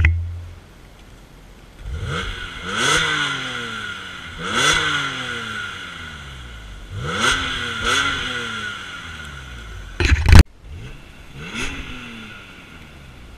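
BMW E46 M3's tuned S54 straight-six with its stock exhaust, blipped from idle about five times: each time the revs jump sharply, then fall back slowly to idle. About two-thirds of the way through, a brief very loud noise stops abruptly.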